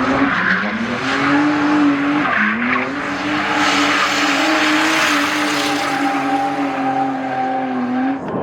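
A drift car's engine held at high revs with tyres screeching as the car slides through a drift. The revs dip briefly twice in the first couple of seconds, then hold steady until the sound cuts off near the end.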